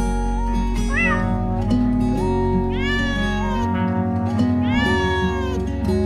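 A cat meows three times over background music: a short meow about a second in, then two longer meows that rise and fall in pitch, one in the middle and one near the end.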